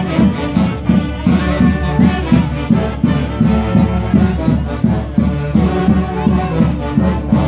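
Andean folk orchestra playing a llamichada dance tune, with a steady beat and horn-like wind melodies over pulsing bass notes.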